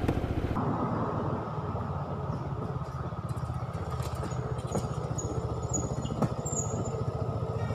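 Yamaha Virago V-twin motorcycle running at low speed as it rides past on a gravel track, with a steady engine beat.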